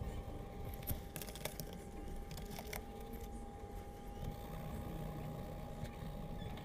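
Coloured pencils working on sketchbook paper: faint shading strokes with scattered light clicks, most of them in the first few seconds as one pencil is swapped for another. Underneath runs a steady low hum with a faint steady tone.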